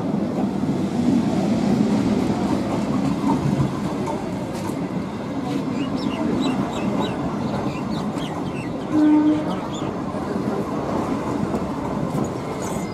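EMU local train carriages moving slowly alongside the platform: a steady rumble of wheels and car bodies with rail clatter. A short louder tone sounds about nine seconds in.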